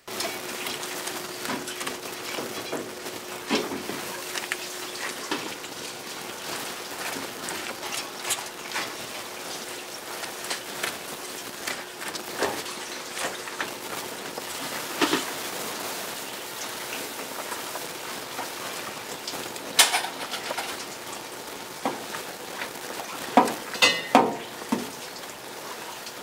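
Kitchen clatter: irregular knocks and clicks as whole pollack are handled and shifted in a stainless-steel tray, over a steady hiss. A faint steady hum stops about halfway through, and a cluster of louder knocks comes near the end.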